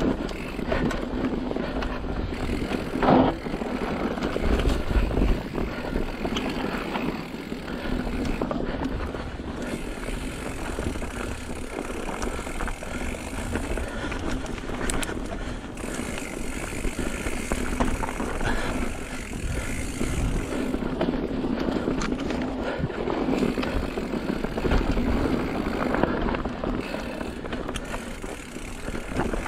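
Mountain bike riding down a rough, rocky trail: tyres rolling over dirt and rock with the bike rattling, and heavier thuds over bumps a few seconds in and again near the end.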